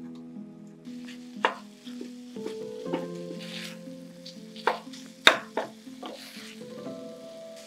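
Pork sausage sizzling in a skillet while a wooden spatula breaks it up and stirs it, with several sharp knocks of the spatula against the pan, the loudest about five seconds in. Soft background music with held notes plays underneath.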